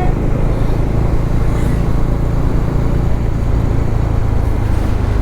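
Motorcycle running steadily on the road, heard as a continuous low rumble with road and wind noise.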